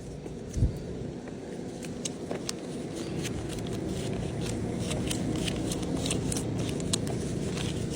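A low thump about half a second in, then a steady vehicle rumble that slowly grows louder, with scattered light clicks over it.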